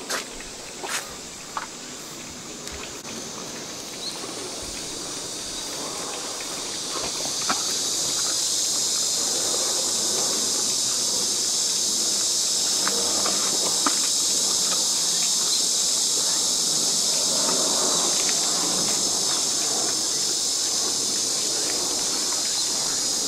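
A high-pitched insect chorus that swells over the first several seconds, holds steady and loud, then drops away right at the end.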